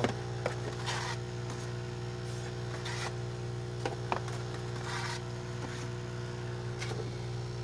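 Steady electric hum and buzz of the air pump driving a homemade froth flotation cell, with short hisses about every two seconds.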